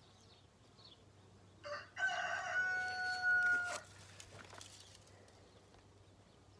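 A rooster crows once, about two seconds in, a single call lasting about two seconds that ends on a long held note.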